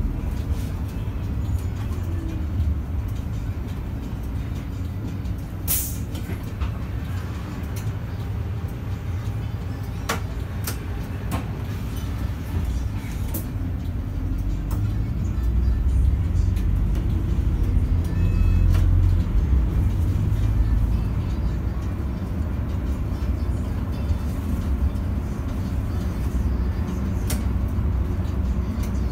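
Cabin noise inside a Solaris Urbino 15 city bus on the move: a steady low engine and road rumble that grows louder in the middle, with a few sharp rattles or clicks.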